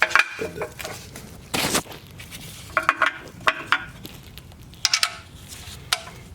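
Metal suspension hardware clinking and tapping as it is handled: a run of separate sharp metallic clicks, several with a short ring, and a brief rustling burst about a second and a half in.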